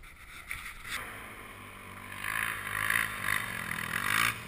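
Quad (ATV) engine running at low revs, getting louder with its pitch wavering from about halfway through as the throttle is worked.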